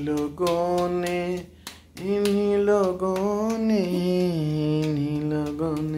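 A voice humming a tune wordlessly in long held notes, with a short break about two seconds in.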